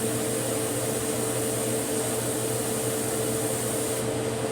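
Cold tap water running onto a solder-casting mold, stopping about four seconds in, over a steady fan-like hum with a constant tone.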